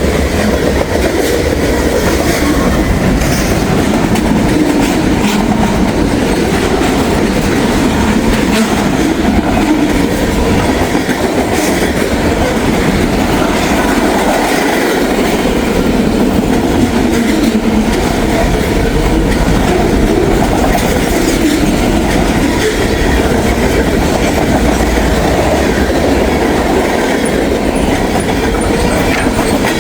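Freight train rolling past at speed: a steady, loud rumble of cars with the clack of steel wheels striking rail joints.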